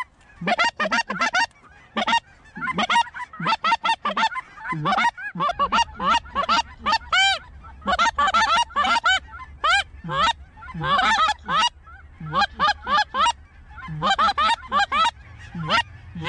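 A flock of geese calling overhead: many short, overlapping honks and barks, each rising and falling in pitch, with no break.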